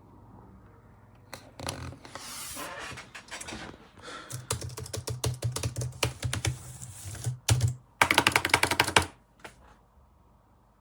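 Typing and key clicks on a laptop keyboard, in spurts, with a dense fast run about eight seconds in.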